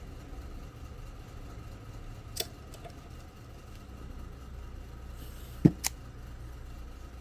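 Handling knocks at a small glass tank with a magnet: a light click about two and a half seconds in, then a sharper knock and a second click close together a little before six seconds, over a steady low hum.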